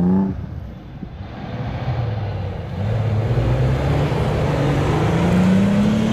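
Opel Frontera SUV's engine revving hard under load as it churns through deep mud, its pitch climbing slowly over the last few seconds, with a steady hiss of spinning tyres and flung mud underneath.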